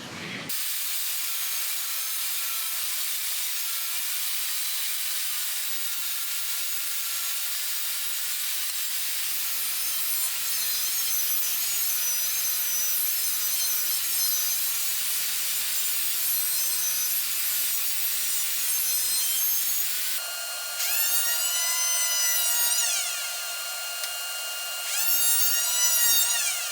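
Power saw cutting a pine board lengthwise, a steady cutting noise. In the later part the saw's whine dips in pitch and recovers a few times as it loads and unloads in the cut.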